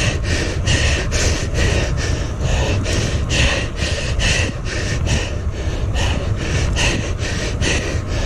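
A cyclist panting hard at full effort: fast, rhythmic breaths, about two to three a second, over a steady low rumble.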